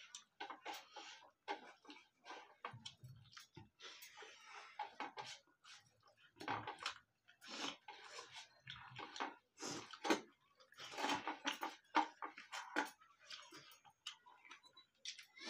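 Two people eating rice and curry by hand from steel plates: fairly quiet, irregular chewing and mouth sounds mixed with fingers squishing rice against the metal plates.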